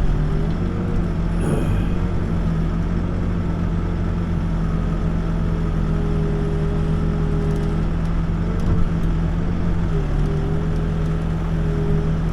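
Backhoe's diesel engine running steadily, heard from the operator's seat, its pitch dipping briefly twice.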